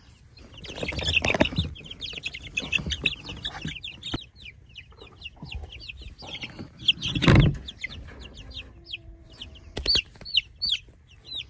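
Young chicks peeping rapidly with short, high chirps, a few low clucks from grown chickens mixed in. Two louder bumps of handling, about a second in and around seven seconds, the second the loudest.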